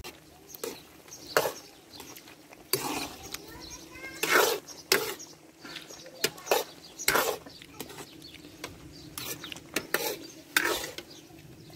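Metal ladle stirring meat in a karahi over a wood fire, scraping and clinking against the pan in irregular strokes.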